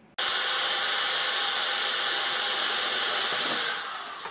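A loud, steady hiss that starts abruptly and fades away near the end.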